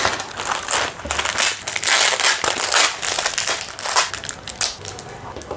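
Plastic packaging crinkling and rustling as hands pull open a clear zip-lock bag and tear into a black parts packet, irregular crackles that are loudest about two to three seconds in.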